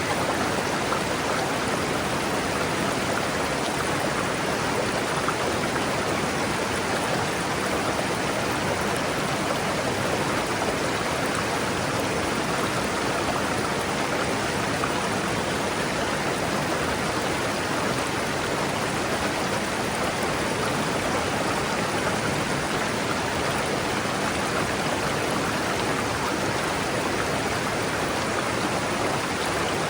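River water rushing steadily over rocks: a constant, even rush with no breaks.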